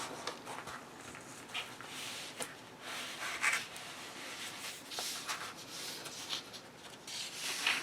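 Soft rustling and brushing of a paperback colouring book's pages being handled and turned, with a couple of faint taps.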